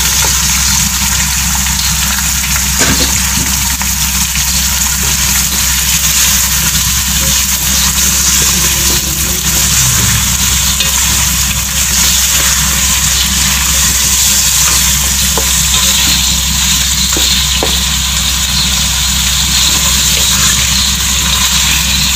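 Raw chicken pieces frying in hot oil in a pot, a loud steady sizzle, while being stirred and turned with a spatula: the chicken being lightly fried before the ground spices go in. A low steady hum runs underneath.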